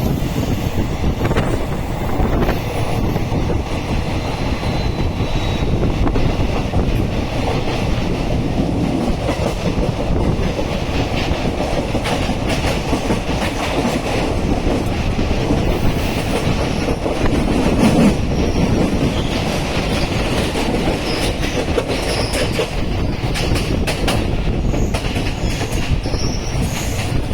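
Train running along the track: a steady, loud rumble of wheels on rails, with short sharp clicks from the rail joints, more of them in the second half.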